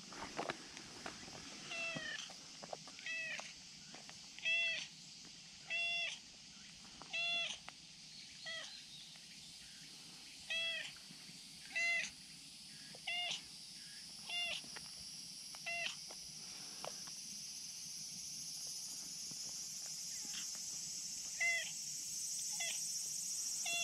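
Brown tabby-and-white stray cat meowing over and over, short meows about every second and a half, then a pause and a few more near the end.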